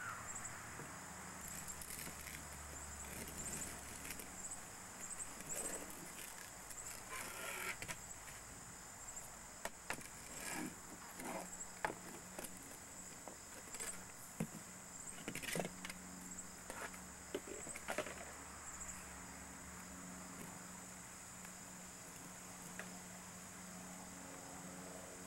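Scattered light knocks and scrapes of a plastic toy shovel against a plastic sandbox and sand, clustered in the middle stretch, over a faint steady hiss with a thin high whine. Short high chirps come and go in the first half.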